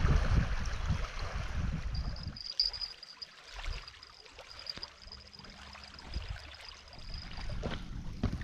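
Small waves lapping and trickling on a stony lakeshore, with a low rumble of wind on the microphone that eases off after the first couple of seconds. A faint, thin, steady high tone runs through the middle.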